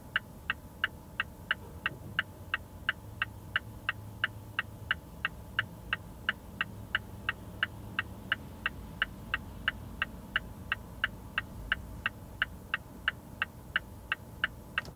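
Mazda CX-5 turn-signal indicator ticking inside the cabin, even sharp ticks at about three a second, over a faint low rumble.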